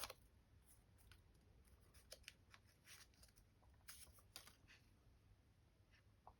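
Near silence with faint, scattered rustles and light clicks from a dry cleaning wipe being handled and rubbed over a camera's screen.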